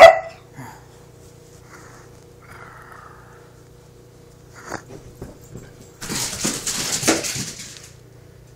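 A small dog gives one short, loud yip, then makes a few faint sounds. About six seconds in come two seconds of rustling from blankets and handling as the dog gets down from the couch.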